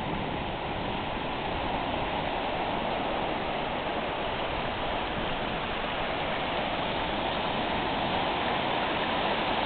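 Sea surf washing up a beach: a steady rush of breaking waves and foam, growing a little louder over the first couple of seconds.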